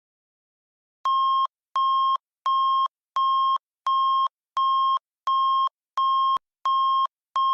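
Electronic alert tone: ten short beeps at one steady pitch, evenly spaced at about one and a half a second, starting about a second in. It is the attention signal that heads an emergency alert broadcast.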